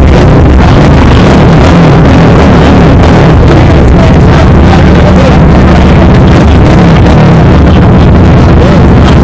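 Dirt bike and ATV engines idling close by: a steady, loud, low running that never lets up, with some wavering higher tones over it.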